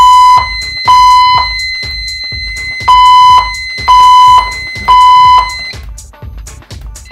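System Sensor fire alarm speakers sounding the temporal-3 evacuation tone: loud half-second 1 kHz beeps in groups of three with a pause between groups. The tone cuts off about six seconds in.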